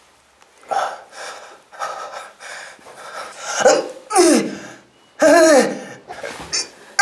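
A young man grunting and puffing with effort during press-ups: a run of short forced breaths, then several strained groans falling in pitch, loudest about five seconds in.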